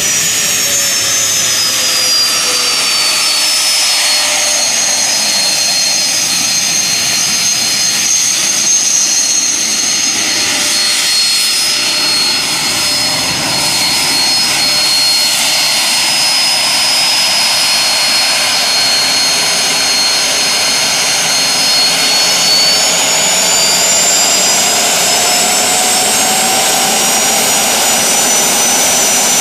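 Turbine engine of a jet dragster van running with a loud roar and a high whine that slides down in pitch over the first few seconds, holds steady, then climbs back up over the last several seconds as the engine spools up.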